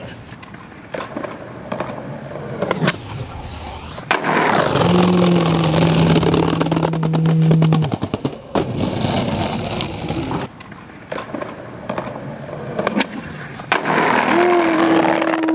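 Skateboard wheels rolling and clattering over brick pavers, with a vehicle passing. There is a steady low hum for about three seconds near the middle, which stops abruptly, and a shorter steady tone near the end.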